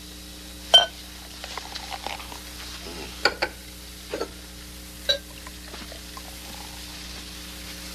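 Champagne being poured from the bottle into a glass and fizzing, with a few short sharp clinks of glass about one, three, four and five seconds in.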